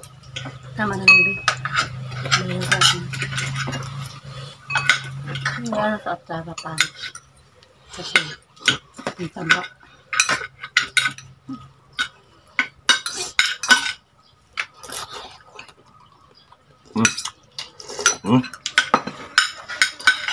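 Metal spoon and fork clinking and scraping on a plate as food is cut and scooped, in irregular sharp clicks. A low steady hum runs under the first several seconds.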